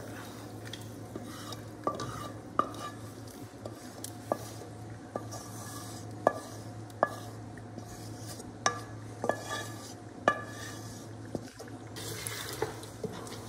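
A metal spoon scrapes and knocks against a metal frying pan as cooked masala is scraped out into a pressure cooker. It gives a dozen or so irregular clinks, some briefly ringing, over a steady low hum.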